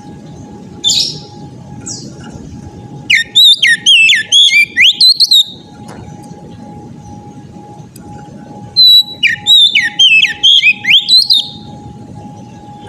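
Oriental magpie-robin (kacer) singing loud, clear whistled song: two bouts of rapid notes sweeping up and down, a few seconds apart, with a couple of single notes before them. A steady faint hum and low hiss run underneath.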